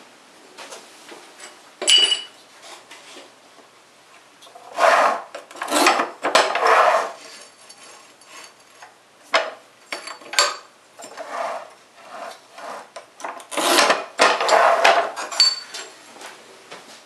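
Manual rail tile cutter scoring ceramic wall tiles: the scoring wheel scrapes across the glaze in several strokes of about a second each. Between the strokes come sharp clicks and short ringing clinks of ceramic tile.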